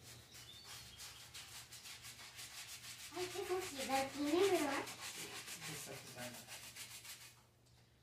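Small hand brush scrubbing greasy ceramic wall tiles coated with degreaser, in quick back-and-forth strokes that stop shortly before the end. A voice hums a short wavering tune in the middle.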